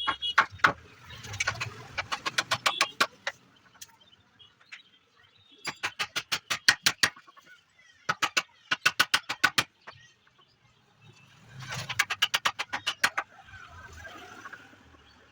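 Sharp taps on wood in four quick runs of about seven taps a second, with short pauses between runs.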